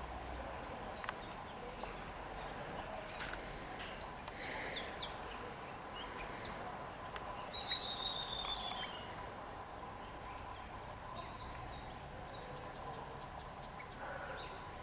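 A bird calling: a few short high chirps, the clearest a quick falling run of notes about halfway through, over a steady background hum and scattered faint clicks.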